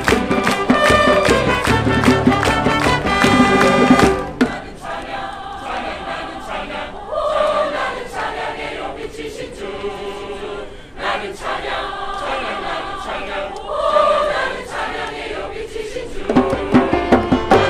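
Large choir singing with a string ensemble of violins and cellos. A loud passage with a steady beat for about the first four seconds drops to a softer stretch of held choral notes, and the loud beat comes back in near the end.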